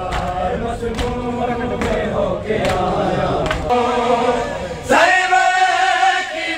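A crowd of mourners chanting a noha in chorus, with sharp chest-beating (matam) strokes about once a second. About five seconds in, one loud male lead voice takes up the lament.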